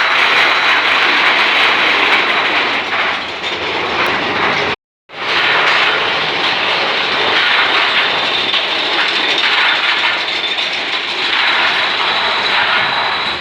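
Loud, steady rushing noise of a theme-park ride in motion, wind and rattle over the microphone. It cuts out completely for a moment just under five seconds in, then carries on.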